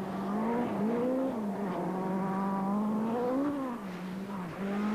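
Peugeot 205 T16 Group B rally car's turbocharged four-cylinder engine running at high revs, its note rising and falling as the throttle is worked, with a brief dip near the end.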